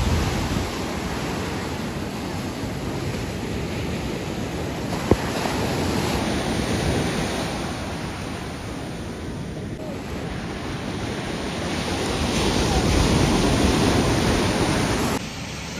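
Ocean surf breaking and washing up a sandy beach, a steady rushing wash with wind buffeting the microphone. The surf swells louder near the end, then drops away suddenly. There is a single short click about five seconds in.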